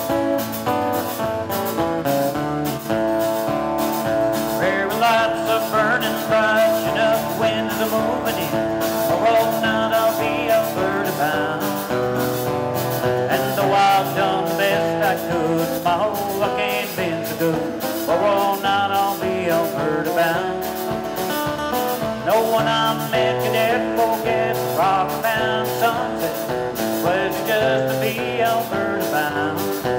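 Country-style music with a steady drum beat and guitar; a wavering melody line comes in about five seconds in.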